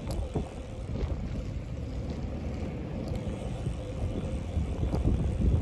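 Low, steady rumble of wind buffeting the microphone while riding a bicycle, with a few faint clicks.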